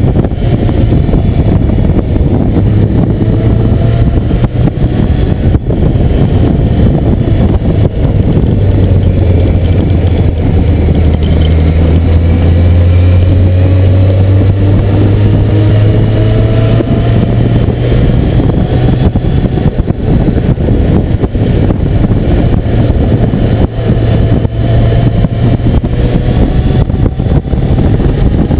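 Motorcycle engine running while riding, its pitch slowly rising and falling as the speed changes, loudest around the middle, over a steady rush of wind and road noise.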